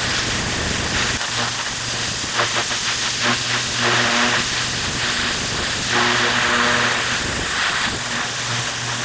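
Pressure washer lance's high-pressure water jet hissing as it blasts a gravel path, with a steady low hum underneath.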